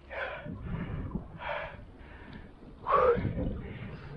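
A cyclist breathing hard close to the microphone: a run of short puffing breaths in and out, the loudest a gasping exhale about three seconds in.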